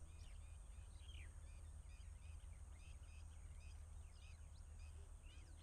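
Faint birds chirping in a quick series of short calls, about three a second, with a few sliding notes, over a thin steady high tone and a low hum.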